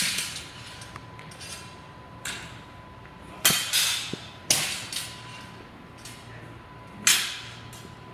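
Practice longswords clashing blade on blade in sparring: sharp clacks with a short ring, about seven at irregular intervals, two or three in quick succession in the middle.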